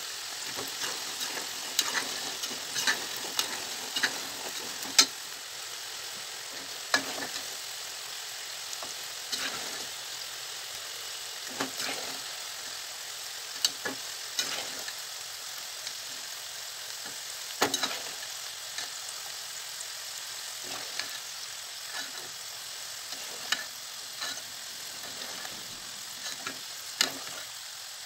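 Potato cubes deep-frying in hot oil in a stainless steel pot. The oil sizzles steadily, with scattered sharp clicks and pops. The potatoes are browned and nearly done.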